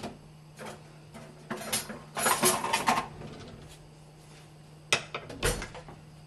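Kitchen utensils clattering and knocking while a drawer is rummaged to fetch a wooden spoon: a longer run of rattling about a second and a half in, then a shorter burst of knocks about five seconds in, over a steady low hum.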